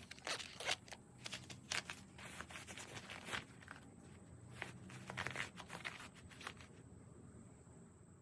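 Handling noise from a multitool pouch and clothing: irregular rustles and small clicks, dying away near the end.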